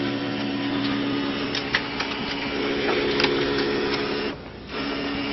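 All-in-one printer running a print job: a steady mechanical whir with a few clicks and ticks from the paper feed. The whir drops out briefly about four seconds in, then starts again.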